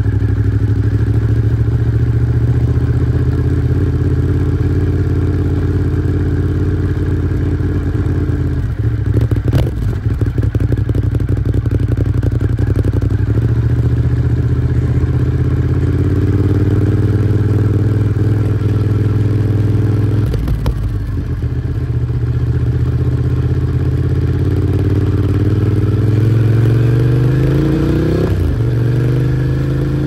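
Ducati Monster 821's L-twin engine idling steadily, heard close to its twin-outlet exhaust. Near the end the revs rise briefly and fall back.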